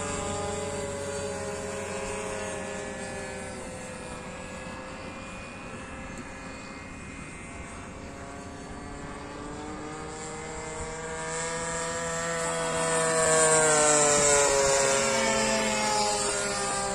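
Radio-controlled warbird model plane flying circuits, its motor and propeller giving a steady pitched drone that swells and sinks in pitch. It grows loudest a little after halfway as it passes close, the pitch dropping as it goes by.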